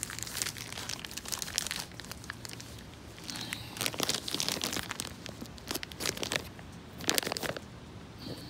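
Irregular clicks, taps and crinkling rustles from hands handling engine parts, busiest around the middle and again near the end.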